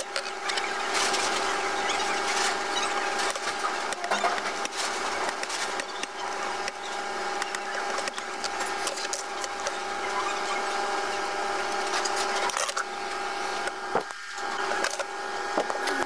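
A sharp metal tool scraping at the edge of a RAM stick's circuit board and its gold-plated connector fingers, in many quick scratchy strokes. A steady hum runs underneath.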